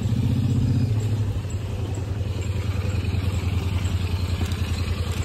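Motorcycle engine running at low revs with a fast, even beat. It is louder for about the first second, then settles to a steady run.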